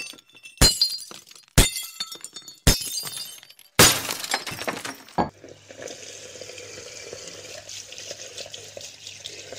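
Four sharp crashes about a second apart, each with a bright ringing tail, then a steady rushing hiss like running water from about five seconds in.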